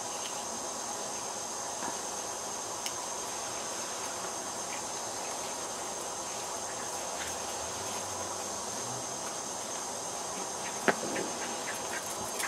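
Steady background hiss with a thin, constant high-pitched whine running through it, and a short sharp click about eleven seconds in.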